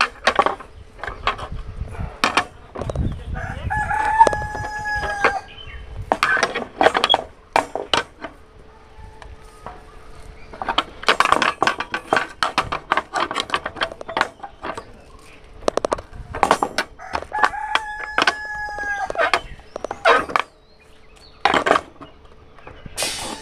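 A rooster crows twice, once about four seconds in and again near eighteen seconds, each crow lasting about a second and a half. Around the crows come many sharp metallic knocks and clinks of steel rebar being bent into stirrups on a steel-pin bending jig.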